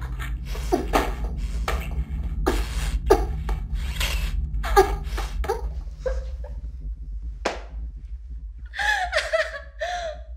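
Kissing: wet lip smacks and breathing, several a second over the first six seconds, over a low steady hum. Near the end comes a brief vocal sound from one of the pair.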